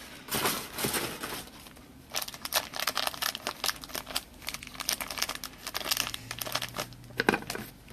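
Plastic wrapping crinkling and tearing in quick, irregular rustles as a trading-card box is unwrapped and opened.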